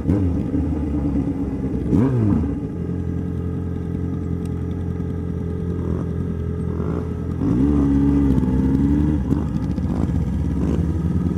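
Yamaha XJ6 inline-four motorcycle engine running while riding. A quick rev blip comes about two seconds in, and the revs rise at about seven and a half seconds, hold briefly, then ease off.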